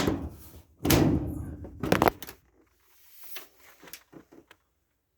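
Amana dryer door being lifted off and handled: several sharp knocks and clunks in the first two seconds, then softer handling sounds that stop about four and a half seconds in.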